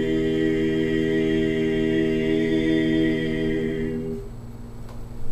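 Barbershop quartet of four men's voices singing a cappella, holding a long, steady closing chord. The higher voices release a little before four seconds in and the lowest voice just after, leaving only a faint low hum.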